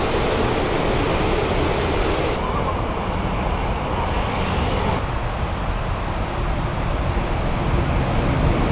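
Steady, even rushing outdoor noise with no distinct events. Its tone changes twice, duller about two seconds in and shifting again around five seconds in.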